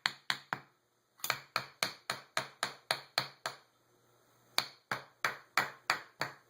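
Hand tool working a stuck power valve loose on a Holley 600 carburetor: three runs of sharp metallic clicks, about four a second, with short pauses between them.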